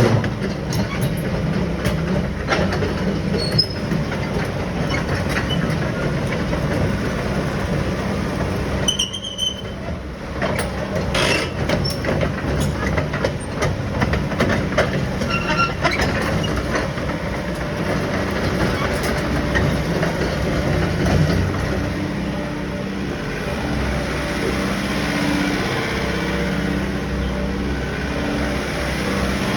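Sany SY75 excavator's diesel engine running steadily under the metallic clanking and squealing of the working machine.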